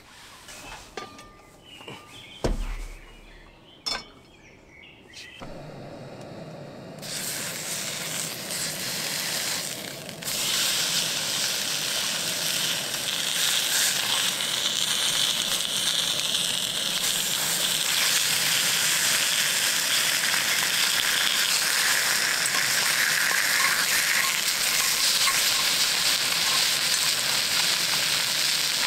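A few light clicks and knocks, then pork belly starts sizzling in a hot pan about five seconds in, growing louder around ten seconds in and frying steadily from there.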